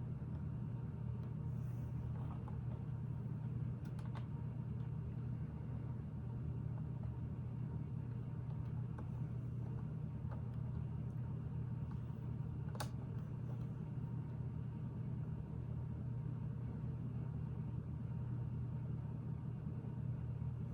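Steady low room hum with a few faint, scattered clicks of Lego bricks and plates being handled and pressed together.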